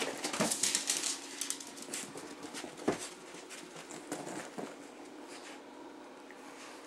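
A small dog scrambling after a stuffed toy and grabbing it: a quick scratchy patter of paws and claws, busiest in the first second or so, with one sharp knock about three seconds in, then quieter scuffling as it mouths and tugs the plush toy.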